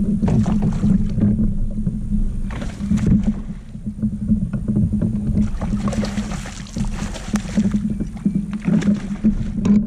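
A hooked bass thrashing and splashing at the surface beside a kayak, in separate splashy bursts, the longest about six seconds in and lasting around two seconds. A steady low rumble runs under it.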